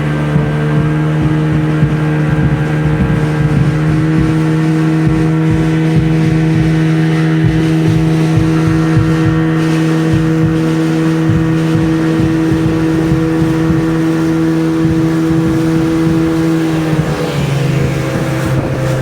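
Tour boat's engine running steadily, its pitch dropping a step about two seconds before the end.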